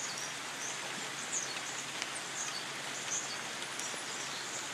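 Steady rain hiss, with short high chirps scattered irregularly over it.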